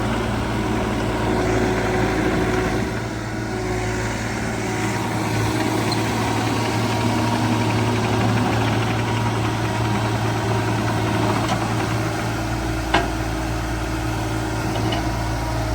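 Kubota KX040 mini excavator's diesel engine running steadily, with a single sharp click near the end.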